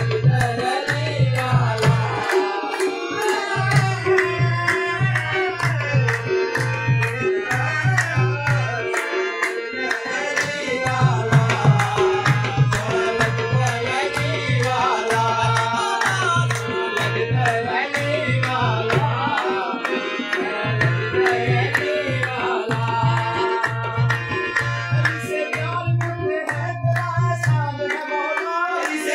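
Live qawwali music: tabla beating a steady, fast rhythm under a harmonium and a singing voice, with the drumming dropping out briefly a few times.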